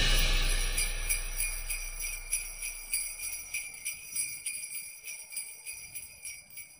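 Sleigh bells shaken in a steady rhythm, the tail of a background music track, fading out until they die away at the end.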